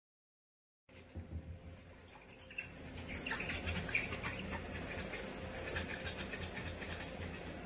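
Two coatis nuzzling and grooming each other on wood-pellet bedding, making faint high squeaks over soft rustling, with one sharper tap about six seconds in. The sound starts about a second in, after a short silence.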